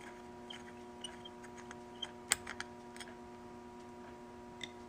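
Faint small metallic clicks and taps from a 3 mm Allen wrench and the float-bowl drain screw of a Keihin CVK40 carburetor being worked and handled, the sharpest click a little past two seconds in. A faint steady hum lies beneath.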